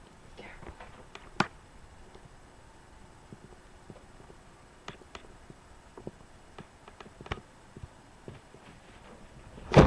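Scattered soft clicks and knocks of a person moving about and opening an interior door, with a sharp click about a second and a half in and a loud thump near the end.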